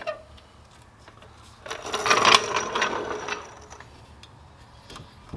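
Metal suspension parts on a BMW F30's rear axle being worked loose. A few light clicks, then about two seconds in a loud metallic clatter with a ringing edge that lasts over a second.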